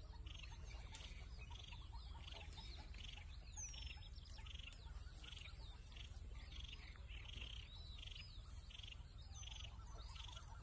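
Birds chirping. A short buzzy chirp repeats steadily a little under twice a second, with whistled rising and falling calls among it, over a low steady rumble.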